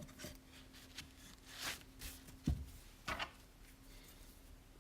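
Faint workbench handling: light scrapes and a few knocks of metal parts and tools being picked up and set down, one firmer knock about halfway through, with a faint steady hum that stops at about the same point.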